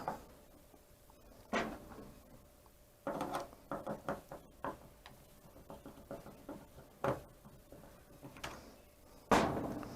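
Scattered clicks, taps and short scrapes of metal lock hardware being handled against a door as the mounting screws of a smart deadbolt lock are started, with a cluster of small knocks about three to four and a half seconds in.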